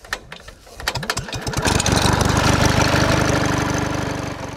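An engine starting: a burst of rapid clatter, then it catches about two seconds in and runs with a fast, even pulse, tapering off near the end.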